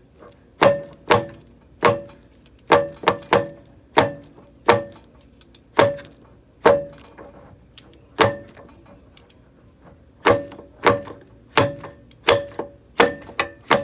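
About twenty sharp metal-on-metal strikes at an uneven pace, each with a brief ringing clang: the axle being tapped to seat its splined end into the Can-Am Maverick's front differential.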